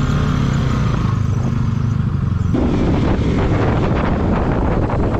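Motorcycle engine running steadily on the move, with wind rushing over the helmet-camera microphone; the wind noise rises sharply about halfway through.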